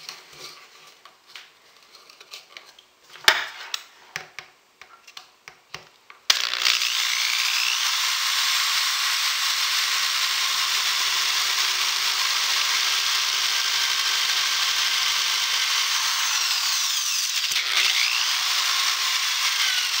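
Light handling clicks and a sharp knock about three seconds in as the acrylic piece is set against the wood block. About six seconds in, an electric drill starts abruptly and runs steadily, its bit boring a hole through thin acrylic sheet.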